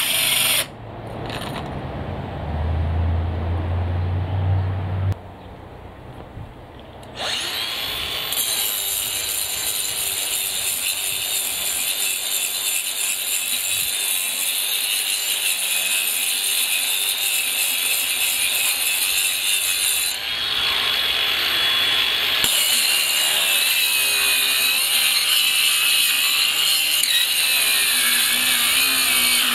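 18-volt brushless cordless angle grinder fitted with a concrete cutting wheel. After a quieter gap in the first seconds, it starts about seven seconds in and runs steadily under load, with a high whine and a grinding hiss. The sound changes briefly about two-thirds of the way through, then settles back.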